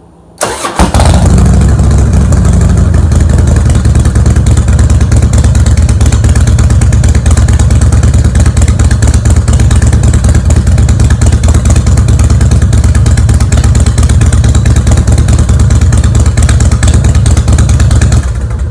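Harley-Davidson Fat Boy's V-twin engine starting up about half a second in, then running steadily and loudly, run for a test of whether the battery is charging, before it cuts off sharply near the end.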